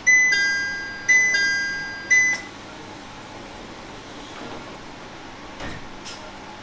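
Two-tone 'ding-dong' door chime of a JR East 701 series train, sounding three times in about two and a half seconds. A faint knock follows a few seconds later over the steady hum of the stopped train.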